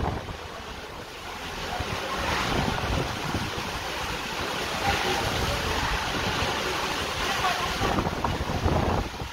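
Heavy downpour in strong gusting wind, the gusts buffeting the microphone with a low rumble and swelling in waves.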